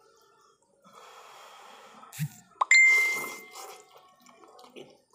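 A person slurping instant ramyun noodles off a fork, with a sharp metallic clink against the bowl a little past halfway that rings on for about a second.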